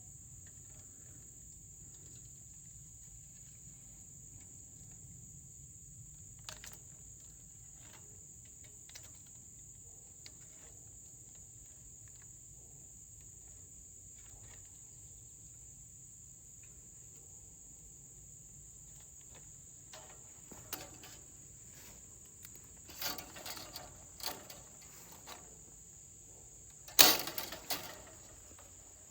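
Steady high-pitched chirring of insects in the field. Scattered clicks and rustles of fence wire being handled come in the latter part, the loudest a sharp clatter near the end.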